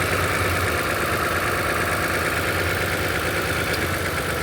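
2007 Toyota Camry V6 engine idling steadily with a misfire, which the scan tool later traces to cylinder six.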